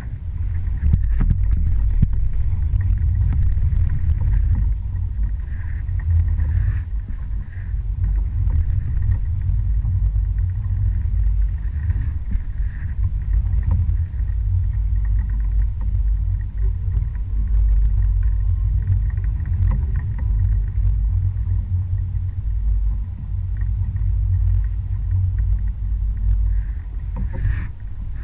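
A small fishing boat under way: a steady low rumble from its motor, with light water noise.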